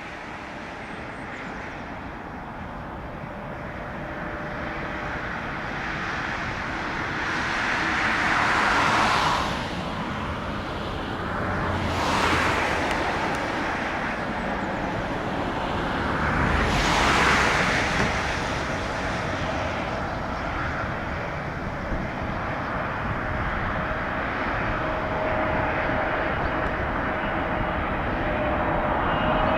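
Boeing 777-300ER on approach, its GE90 jet engines a broad rumble that slowly grows louder. Three swells of rushing noise pass through it, and a high, steady engine whine comes in near the end.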